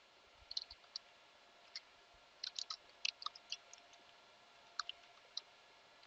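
Faint computer keyboard keystrokes: an irregular run of light clicks as a command is typed.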